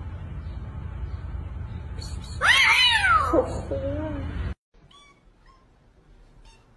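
A spotted tabby kitten lets out one loud yowl a little before halfway through, rising and then falling in pitch, over a steady low rumble. After a sudden cut, a couple of faint short kitten mews follow.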